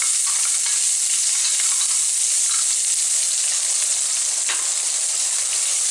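Freshly added sliced shallots sizzling in hot oil, a steady hiss, as they are stirred with a wooden spatula.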